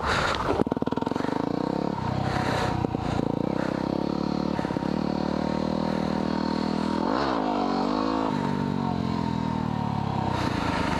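2010 Yamaha WR250R's single-cylinder engine running steadily as the bike is ridden at low speed, heard close up. About seven seconds in the engine note briefly dips and rises again.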